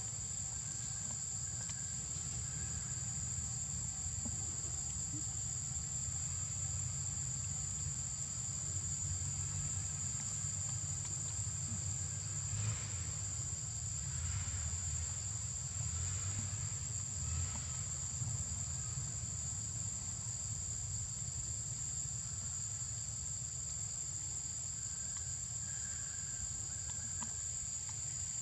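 Steady, high-pitched drone of insects, unbroken throughout, over a low rumble.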